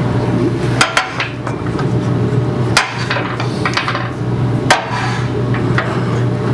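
Wood lathe running with a steady low hum while a gouge cuts a spinning green red oak bowl blank with a rough, hissing cut. Sharp clacks sound four times as the tool meets the blank.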